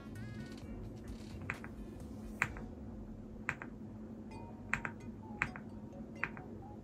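AULA F75 mechanical keyboard keys pressed one at a time: about seven separate clacks spread unevenly, as the Fn key combination cycles the RGB backlight modes.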